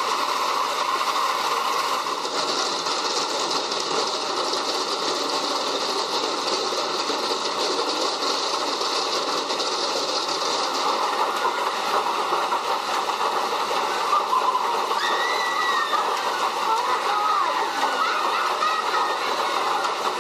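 Hailstorm: hail and rain pelting down in a steady, dense rush of noise, with faint voices heard through it in the second half.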